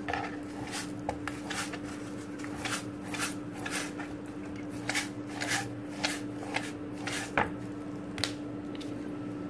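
Hand rubbing and scraping a stinging catfish against a wooden cutting board in repeated short strokes, about two a second, stopping near the end, over a steady low hum.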